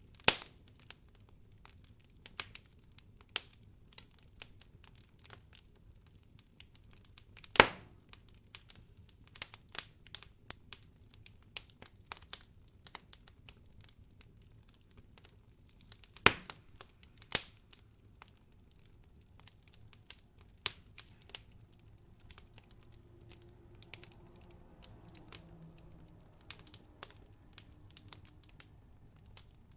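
Campfire of burning firewood crackling, with sharp pops at irregular intervals. The loudest pops come about a quarter of the way in and twice just past halfway.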